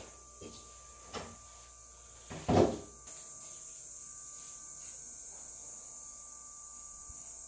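Household items and a cabinet being handled: a couple of light knocks, then a louder wooden clunk about two and a half seconds in, like a cupboard door or drawer shutting. A faint steady hum follows.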